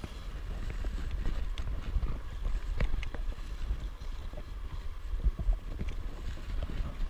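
Low wind rumble on a GoPro inside its waterproof case, over the rush of a flowing creek. Scattered sharp clicks come from a fishing angler's pincers bouncing against the camera case.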